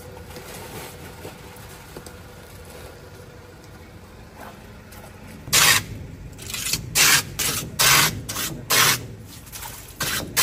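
Block of ice pushed by hand across the blade of a wooden ice plane, each push a short, loud scraping rasp. The strokes begin about halfway through and come roughly once or twice a second, about eight in all, over a faint steady background.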